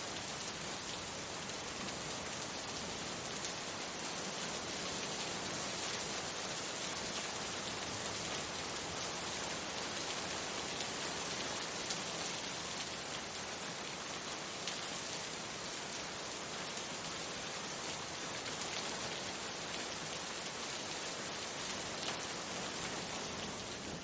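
Steady rain falling and splashing into standing water on a flat surface, an even hiss of many drops.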